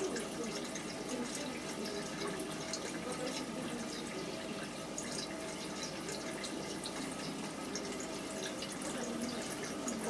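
Steady trickling and splashing of aquarium water, with scattered small drips and bubble pops.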